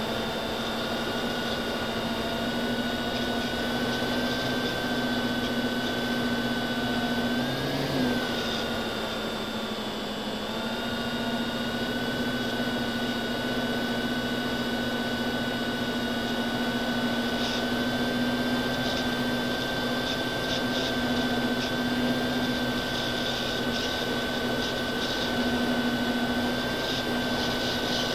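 FPV quadcopter's brushless motors and propellers whining steadily, heard from its onboard camera. The pitch briefly rises about eight seconds in, then the whine drops back for a couple of seconds before returning.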